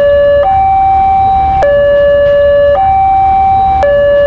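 Two-tone hi-lo siren like an ambulance's, switching back and forth between a lower and a higher note about once a second.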